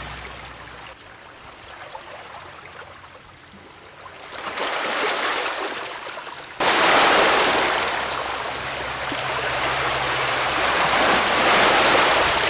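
Small sea waves washing and splashing over shoreline rocks, a steady rushing noise that swells a little about four seconds in, then turns abruptly louder just past halfway.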